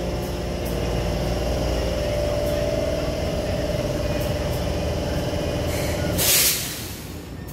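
Taipei Metro C301 train standing at the platform with its doors shut, its equipment giving a steady hum with a held tone. About six seconds in comes a short, loud hiss of air, the air brakes releasing before departure.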